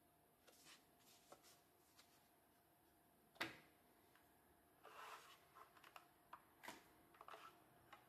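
Faint handling noise from a keyboard and a paper insert card: soft rustles and light clicks, with one sharp knock about three and a half seconds in, then a cluster of rustling and a few more clicks in the second half.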